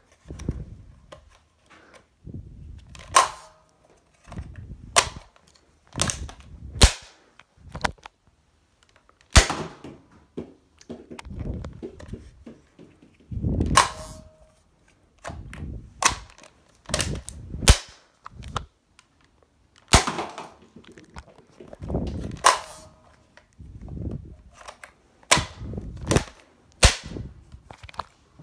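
Spring-powered Nerf dart blaster fired over and over, a sharp pop roughly every one to two seconds, with softer plastic clacks and knocks between the shots.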